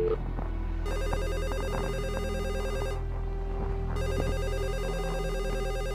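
A telephone ringing twice with an electronic trilling ring. Each ring lasts about two seconds, with a second's pause between them.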